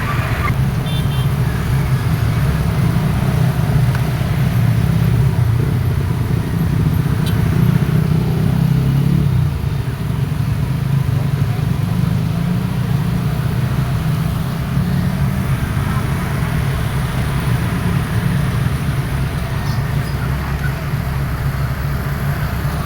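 Excavator's diesel engine running steadily under work, a little louder for several seconds and easing off about nine and a half seconds in.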